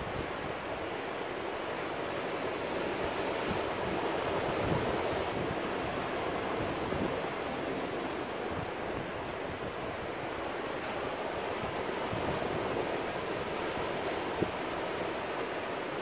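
Sea surf washing in and breaking around rocks: a steady rush of water that swells a little twice.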